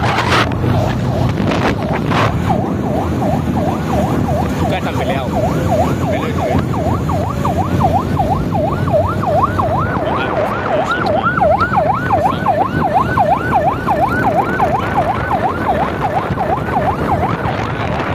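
Vehicle siren in a fast yelp, its pitch sweeping up and down about three times a second. It starts a couple of seconds in and grows louder past the middle, over steady street noise.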